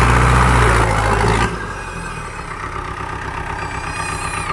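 Tractor diesel engine running loud and steady under load. About a second and a half in it drops suddenly to a quieter, evenly pulsing run.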